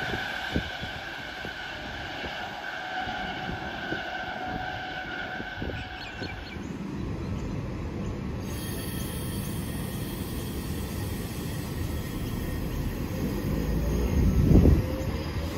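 Intercity V-set double-deck electric train's camshaft-controlled traction motors whining, the high whine sliding slightly lower and fading away over the first six seconds. Then another V-set rumbles along the platform, its running and wheel noise growing louder, with a loud clatter near the end.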